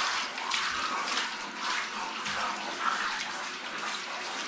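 Water running from a handheld shower head and spraying onto a cat's fur as it is wetted down for a bath.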